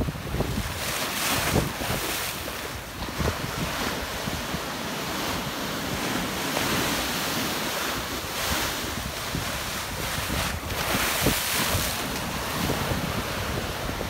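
Sea surf breaking on the shore: waves rolling in and foam hissing, swelling in repeated surges. Wind buffets the microphone underneath.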